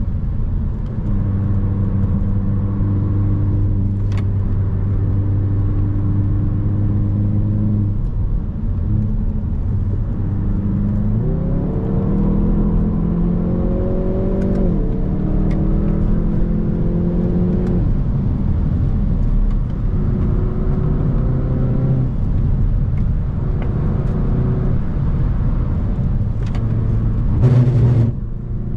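Hyundai i30 N's 2.0-litre turbocharged four-cylinder engine working hard on track. It holds steady revs for several seconds, then twice climbs in pitch and drops back sharply as it shifts up. Near the end there is a short, loud burst of noise.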